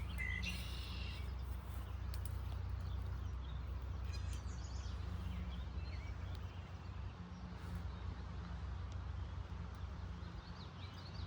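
Outdoor ambience: a steady low rumble under a faint hiss, with brief bird chirps near the start and again about four seconds in.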